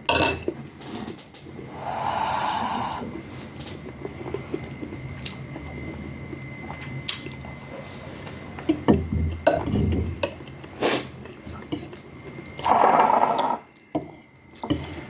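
Eating noodle soup: two slurps of about a second each, one near the start and one near the end, with scattered clicks of utensils against the bowl in between.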